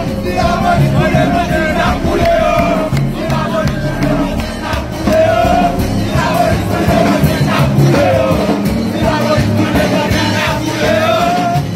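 Music with a crowd of voices singing and shouting.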